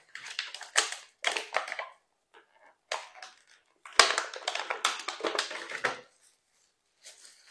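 Clear plastic packaging tray and plastic wrap crackling and crinkling as they are handled, in several bursts, with a sharp snap about four seconds in.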